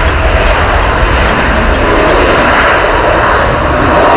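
Airbus A380 jet airliner taking off, its four turbofan engines at takeoff power making a loud, steady rushing noise as it climbs away.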